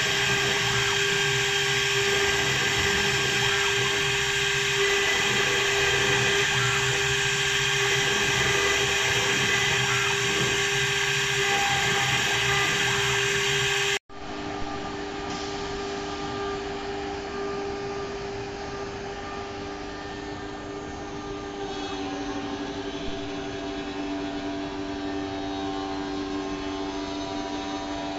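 The high-speed spindle of a CNC wood lathe's carving head running steadily with a high whine as it cuts grooves into a turned wooden spindle. About halfway through, the sound breaks off abruptly and gives way to a quieter, steady machine hum with a couple of steady tones.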